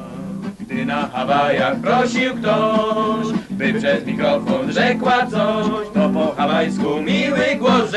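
A group of men singing a folk song in Polish, with a regular beat underneath.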